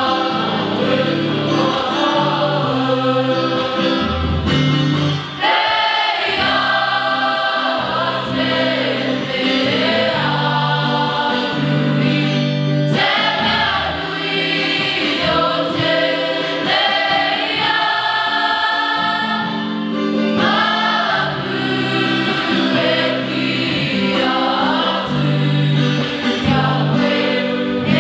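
A choir singing a slow song in held chords.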